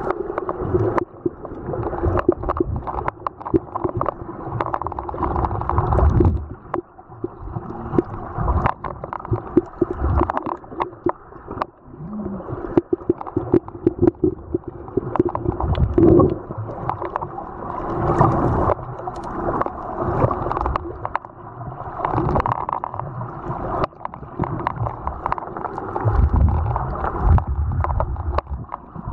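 Muffled water sound as heard through a submerged camera: gurgling and sloshing with many small clicks and crackles over a steady low hum.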